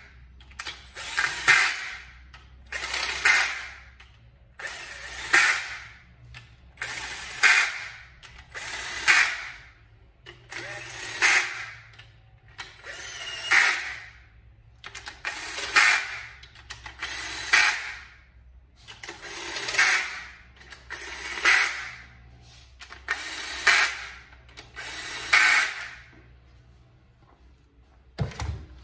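Hand socket ratchet run down on the cylinder head bolts of a Chrysler slant-six engine: a burst of ratchet clicking about every two seconds, about a dozen strokes, then it stops. A single low thump comes near the end.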